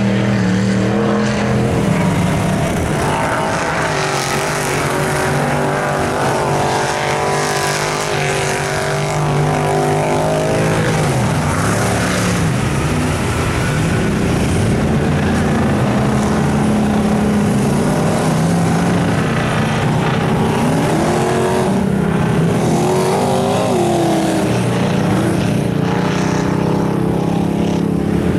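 Lifted square-body Chevy mud trucks on big tractor tyres running hard through a mud bog, their engines revving up and down in pitch while the tyres throw mud and water.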